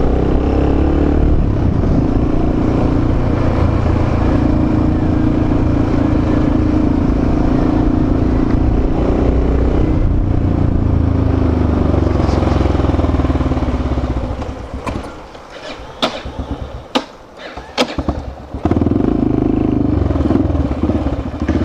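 Motorcycle engine running under way, its pitch rising and falling with speed. About two-thirds of the way through it drops away for a few seconds, with a few sharp clicks, then picks up again: the bike is cutting out.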